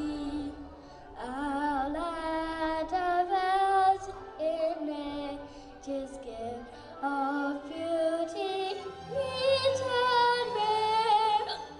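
A boy singing the national anthem solo, in long held notes with a wavering vibrato and short breaks between phrases.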